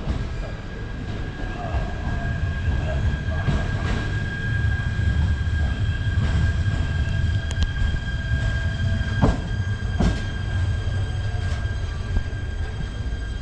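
Electric commuter train running: a continuous low rumble with a steady high-pitched wheel squeal over it and two sharp knocks a little after the middle.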